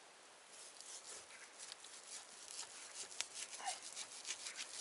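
Steel knife slicing frozen beef cheek meat from a cow's head: a run of short, faint rasping cuts, with one sharp click a little after three seconds.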